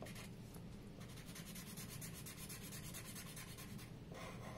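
Black Sharpie marker scribbling on paper, faint, in quick, even back-and-forth strokes as it fills in a solid black area; the strokes let up briefly near the end.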